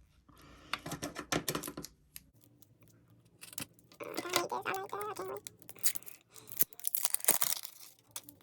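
Packaging being torn open and crinkled by hand, in several stretches of crackly rustling.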